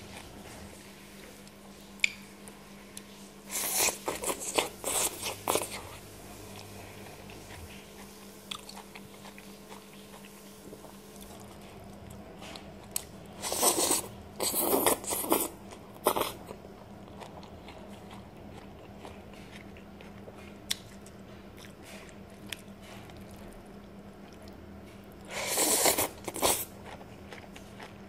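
Noodles in sauce being slurped up close in three loud bouts roughly ten seconds apart, each a run of quick sucking strokes, with faint chewing and mouth clicks between them.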